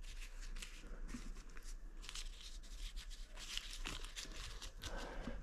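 Paper banknotes being handled and spread out on a bed: soft, irregular rustling and crinkling of the notes.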